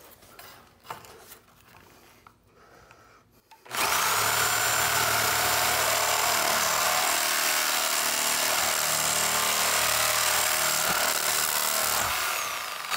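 Reciprocating saw cutting through the nails between a wooden stud and its bottom plate. It starts about four seconds in, runs steadily through the cut and winds down near the end. The blade is not pinched, because the stud carries no weight with the roof load moved to a temporary wall.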